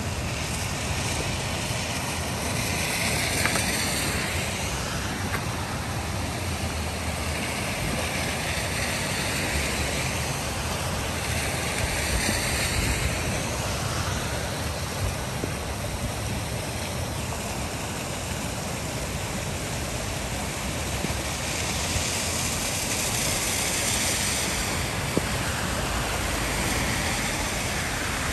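Flash floodwater rushing down a desert wash: a steady rushing noise with slow swells.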